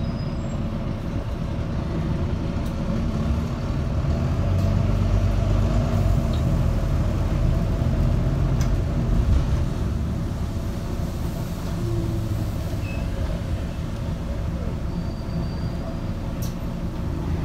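Cabin sound of a Volvo B9TL double-decker bus on the move: the diesel engine and road noise rumbling steadily, swelling louder for several seconds about a quarter of the way in, then easing off. A few light clicks and rattles come from the bodywork.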